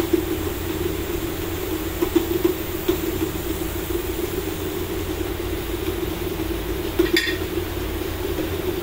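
Steady drone of workshop machinery running. A few light clicks and one small ringing metallic clink about seven seconds in come from brass fittings being handled and set onto hydraulic pumps.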